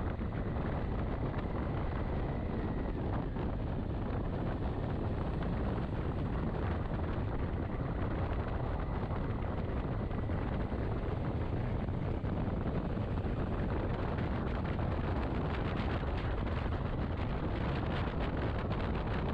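Steady rush of wind buffeting the microphone on a moving motorcycle, with the bike's running and road noise underneath.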